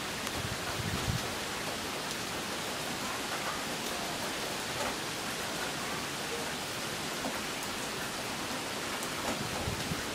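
Steady rain falling on lawn and pavement, an even hiss, with a couple of low bumps about a second in and near the end.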